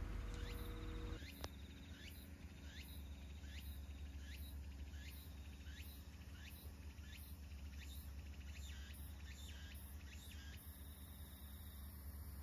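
Insects calling in woodland: faint rhythmic chirps about twice a second, with a thin continuous high buzz joining near the end, over a low steady hum.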